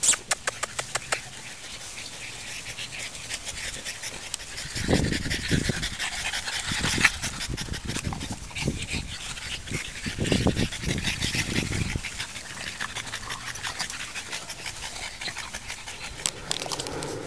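French bulldog puppies playing and wrestling over toys, with close, heavy dog breathing. A quick run of sharp clicks comes in the first second and a half, and low rumbles come around five and again around ten seconds in.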